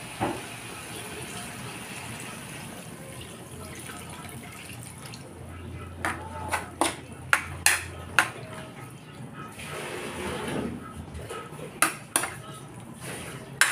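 Coconut milk pouring from a plate into a wok. A metal spatula then clinks and scrapes against the plate and the wok several times while stirring: a run of sharp clinks about six to eight seconds in, and more near the end.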